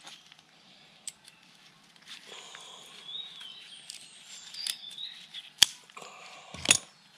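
A few sharp clicks and snaps from hands and tools working through a bonsai root ball, the loudest about two-thirds of the way in and another just before the end. A bird sings thin, whistled phrases in the background from about two seconds in.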